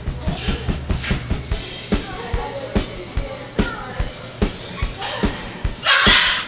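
Music with a drum-kit beat, regular kick and snare hits, and a loud burst of noise near the end.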